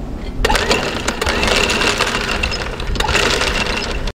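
Anchor chain rattling over the bow windlass's gypsy as it is let out, a fast metallic clatter that starts abruptly about half a second in.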